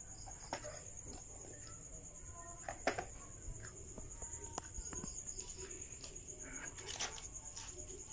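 Crickets trilling steadily, a continuous high-pitched insect sound, with a few sharp knocks of a wooden stick against the foam-brick wall, the loudest about three seconds in and near the end.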